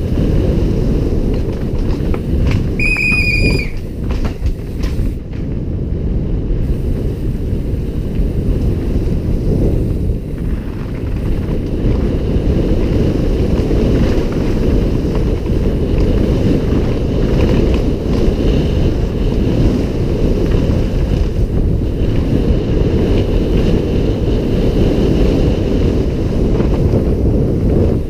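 Wind buffeting a helmet-mounted camera's microphone at downhill mountain-bike speed, mixed with the rumble of tyres rolling over a rough dirt trail. A brief high-pitched squeal sounds about three seconds in.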